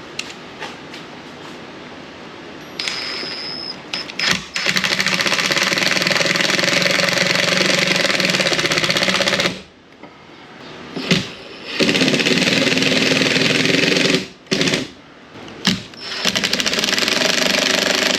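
Power driver driving screws into a board, in three long runs of fast, even pulsing, each a few seconds long, with short blips of the trigger between them.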